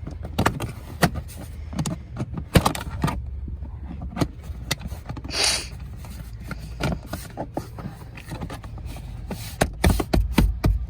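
Irregular clicks and knocks of car door parts being handled and fitted, with a short scrape about five and a half seconds in and heavier thumps near the end.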